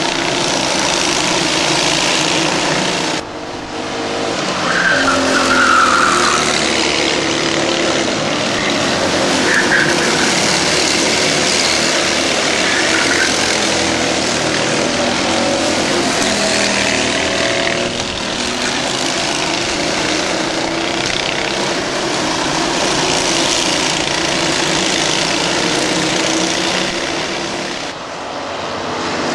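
Several racing karts' engines running at speed together, their pitches rising and falling as the karts accelerate and brake through the corners. A few short high squeals of tyres sliding.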